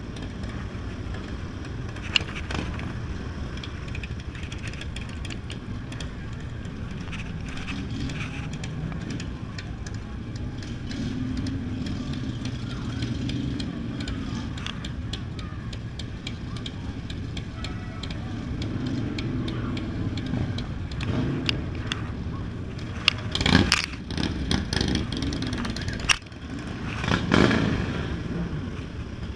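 Yamaha Zuma 125 scooter's four-stroke single-cylinder engine running steadily at low speed, heard from the rider's seat, rising and falling gently with the throttle. A few louder surges come near the end.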